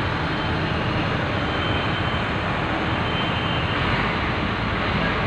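Steady motor-vehicle running noise: a low engine hum under an even rushing noise.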